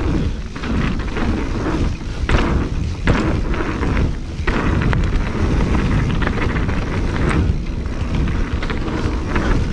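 Wind rumbling on the camera microphone while a mountain bike rolls over dirt trail, with scattered knocks and rattles from the bike over bumps.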